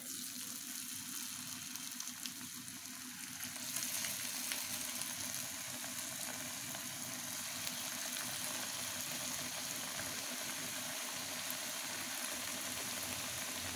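Square stuffed wheat-and-rava pastries sizzling steadily as they deep-fry in hot oil, the sizzle growing a little louder about four seconds in.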